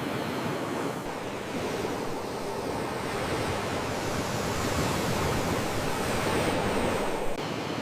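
Sea waves washing on the shore: a steady rushing that swells over several seconds and drops off suddenly near the end.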